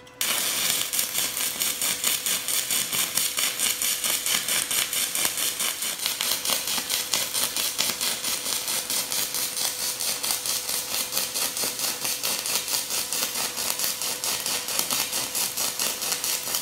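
Pulsed stick-welding arc from an HTP Inverarc 200 TLP inverter running a 1/8-inch 7018 rod at 160 amps: struck at the start, then a steady crackling hiss that swells and fades about four to five times a second with the pulse setting.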